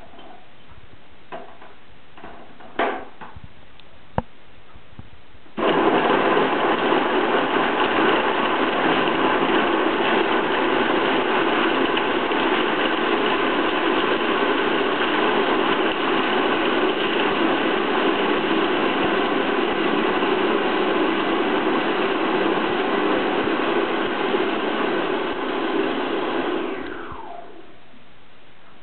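Countertop food processor chopping carrots and dates into a paste. The motor starts abruptly about five or six seconds in, runs steadily for about twenty seconds, then winds down with a falling pitch as it is switched off. A few light clicks and knocks come before it starts.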